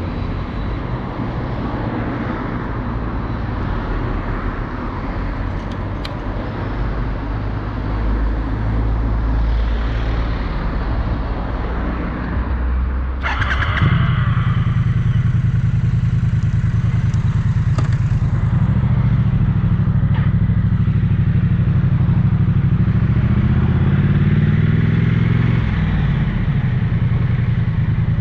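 Triumph Bonneville 900cc parallel-twin motorcycle engine, started about halfway through after a short whirring burst from the starter. It then idles with an even, throbbing beat and is revved once briefly near the end, the pitch rising and falling. Before the start there is a low rumble of background traffic.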